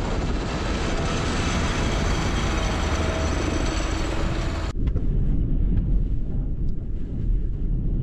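A tracked snowcat running over snow: its engine and tracks make a loud, dense noise with a faint steady engine note. About five seconds in this cuts suddenly to a low rumble of strong wind buffeting a van at night.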